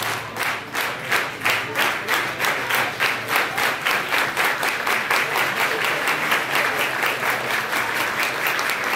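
A crowd clapping in unison to a steady beat, about four claps a second, getting louder over the first few seconds.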